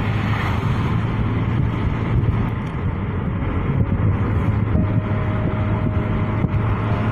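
A motor vehicle running steadily, with a constant low engine hum and wind rushing on the microphone.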